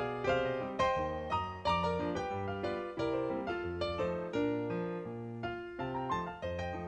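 Background piano music: a melody of struck, fading notes over repeated low bass notes.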